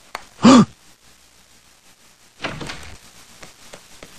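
A brief vocal sound about half a second in, then a short noisy clatter or rustle a couple of seconds later.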